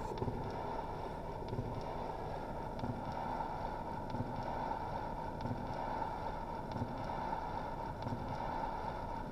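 Vintage portable record player spinning a small vinyl record with no music playing: steady surface hiss and motor rumble, with a soft thump and click about every second and a third as the record goes round.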